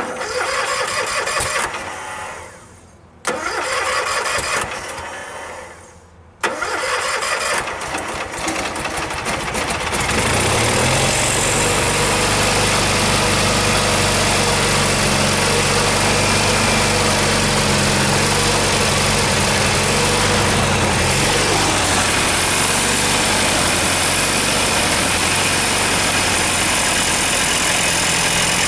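Cub Cadet 1811 lawn tractor engine being cranked by its starter in three tries. It catches about ten seconds in and then runs steadily.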